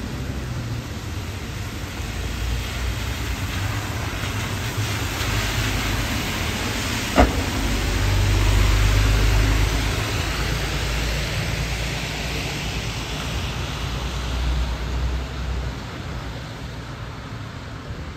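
MAN Lion's City GL articulated bus passing on a wet road: its engine rumble and tyre hiss swell to a peak about halfway, then fade. A single sharp click sounds just before the peak.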